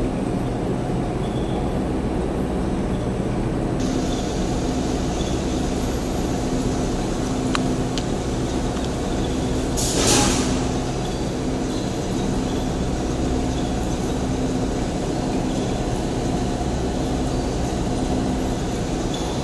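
Steady hum and drone of running industrial machinery. A faint click comes about two-fifths of the way in, and a short burst of hiss about halfway through.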